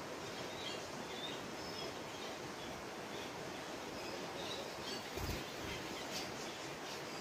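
Woodland ambience: a steady hiss of background noise with scattered short, high bird chirps, and a brief low thump about five seconds in.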